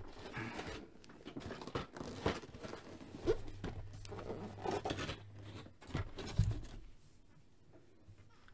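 Cardboard toy box handled and slid across a desk: irregular scraping and rustling of cardboard with a few knocks, the loudest a thump about six and a half seconds in, stopping about seven seconds in.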